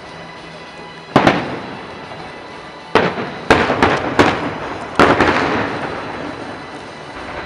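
Aerial fireworks shells bursting: one bang about a second in, then a quick run of five bangs over the next few seconds, each followed by a rolling echo that dies away slowly.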